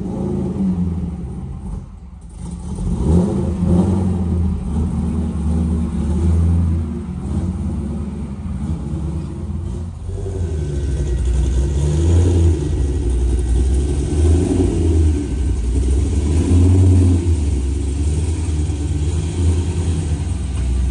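Car engine running with a low rumble whose loudness swells and eases several times, with a short dip about two seconds in.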